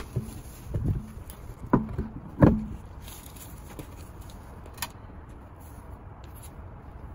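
Car road wheel being fitted back onto the hub: a few dull thumps and knocks of the tyre and rim against the hub in the first three seconds, the loudest about two and a half seconds in.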